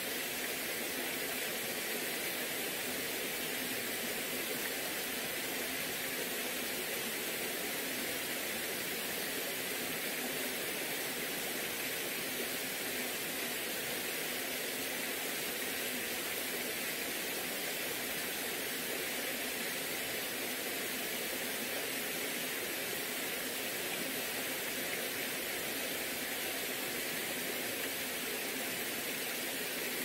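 Mountain stream cascading over rocks in small falls: a steady rush of water with no change throughout.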